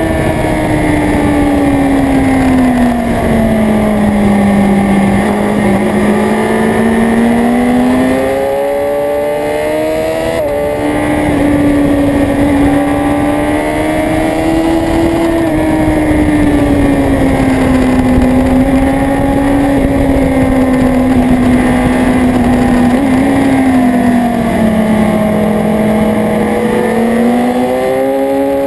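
Motorcycle engine heard from a camera mounted on the bike at track speed, over a steady rush of wind. The engine note sinks over a few seconds, climbs again with a brief break about ten seconds in, holds fairly steady, then dips and rises once more near the end.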